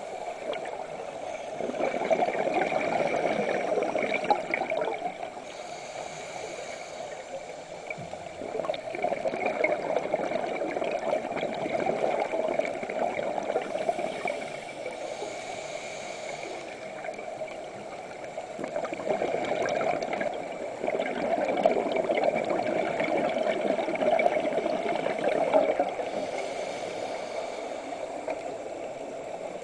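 Scuba regulator breathing underwater: exhaled air bubbles gurgling and rushing past in bursts of a few seconds, with quieter stretches between breaths.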